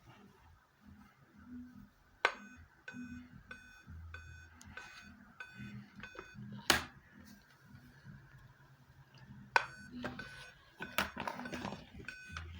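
Dell Inspiron 3531 laptop beeping through its speakers as it fails to start: short high beeps about twice a second, in groups with a pause between, a Dell beep code that signals a hardware fault at startup. A few sharp clicks fall among the beeps.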